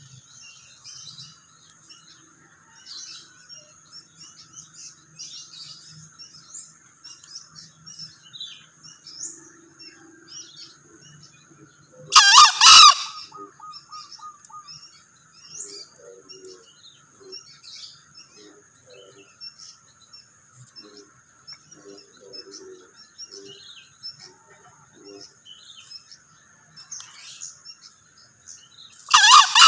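Male green junglefowl crowing twice, each a short, loud, high-pitched call, once about twelve seconds in and again near the end. Between the crows there are faint scattered chirps and a steady high hum.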